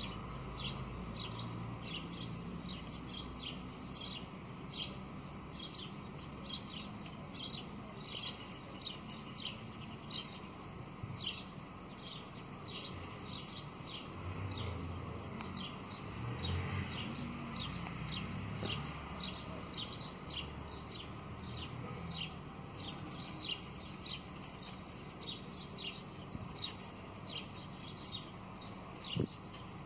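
House sparrows chirping: a steady run of short, high chirps, about two to three a second.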